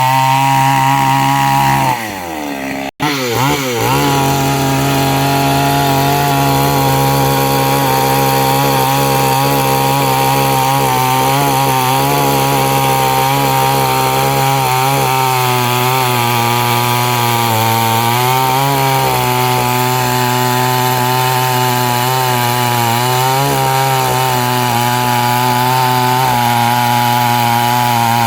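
Chainsaw running at high speed, cutting wood. About two seconds in its pitch drops, there is a very short break, and then it revs back up and runs on steadily with small wavers in pitch.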